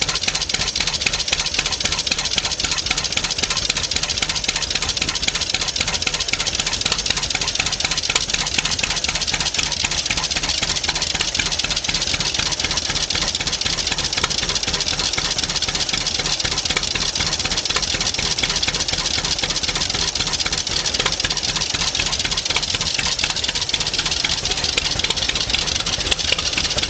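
A 1937 John Deere B's two-cylinder engine idling steadily, with an even beat of separate firing strokes.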